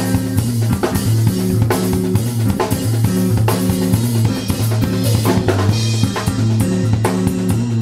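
A rock band playing an instrumental passage: a drum kit with bass drum, snare and cymbals played close up, with an electric bass picking a run of low notes.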